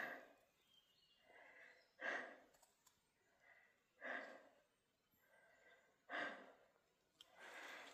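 Faint, heavy breathing of a man close to the microphone, a strong breath about every two seconds with a softer one between.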